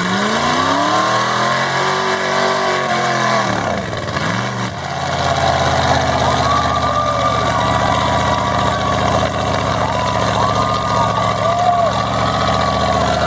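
Mud truck engine revving up and dropping back in the first few seconds, then running steadily at high revs.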